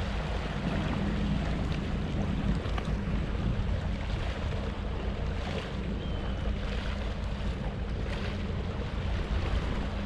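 Wind buffeting the microphone as a steady low rumble, over the wash of choppy sea waves.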